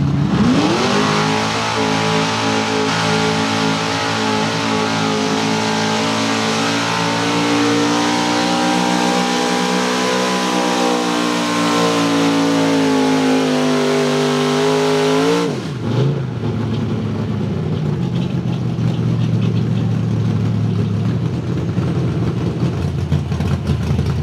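Small-block Chevy V8 in a 4x4 pickup pulling a weighted sled at full throttle. It revs up sharply at the launch and holds a high, straining pitch that rises and falls slightly for about fifteen seconds. Then the throttle is cut, the pitch drops sharply, and the engine settles to a low idle.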